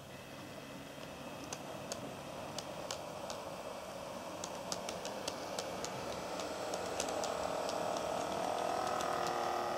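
KATO N scale model train (Rhaetian Railway ABe 8/12 'Allegra') running close by on sectional track: a small electric motor's whine and gear hum growing louder, with the wheels ticking irregularly over the rail joints.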